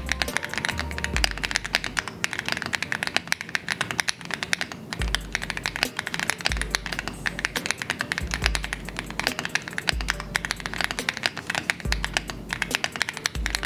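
Fast typing on an AKKO MOD007 PC gasket-mount mechanical keyboard with Akko CS Piano switches and PBT Cherry-profile keycaps: a dense, unbroken run of keystrokes over background music with a deep bass line.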